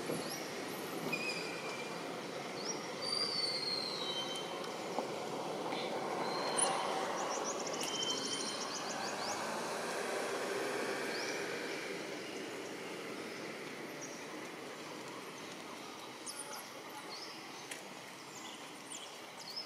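A motor vehicle passing by, its rushing noise swelling towards the middle and fading away in the second half, with birds chirping in short high calls.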